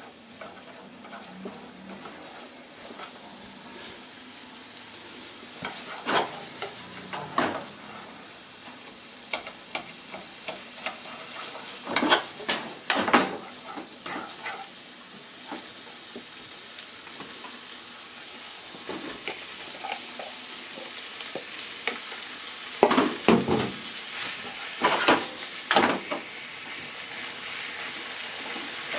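Sliced onion and ham sizzling steadily in a frying pan while being stir-fried, with chopsticks scraping and tapping against the pan in several louder bursts.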